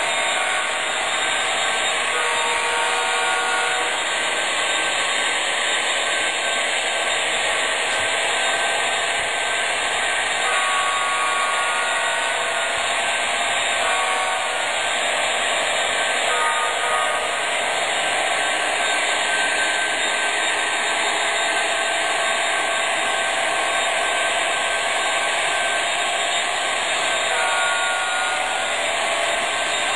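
Sound decoders in HO-scale MTH SD70M-2 diesel models playing the drone of an EMD two-stroke V16 prime mover through their small speakers, a steady hissy running sound, mixed with the train rolling on the track. A few brief faint tones come and go.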